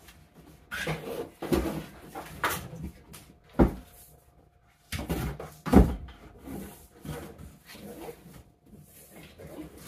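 Heavy 6/3 electrical cable being worked by hand over wooden floor joists overhead: irregular scraping and rustling, with a few sharp knocks, the loudest about a third of the way in and just past the middle.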